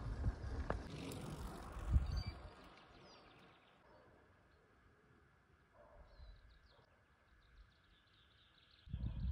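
Wind and road rumble on the microphone while cycling, with a thump about two seconds in. About three seconds in it gives way to a quiet roadside with faint bird chirps.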